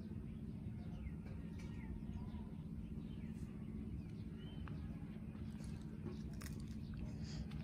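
Quiet outdoor garden ambience: a steady low hum with faint, scattered bird chirps and a few light clicks.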